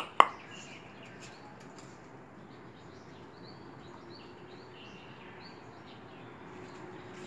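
Faint bird chirps, short high calls every second or so, over steady outdoor background hiss. A brief sharp sound right at the start is the loudest thing.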